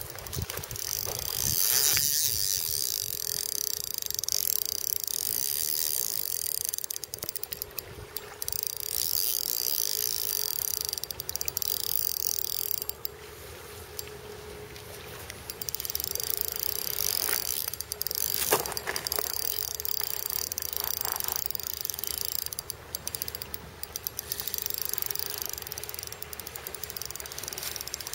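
Spinning reel being cranked in a steady retrieve, a fine mechanical whirring, with a pause of about three seconds near the middle.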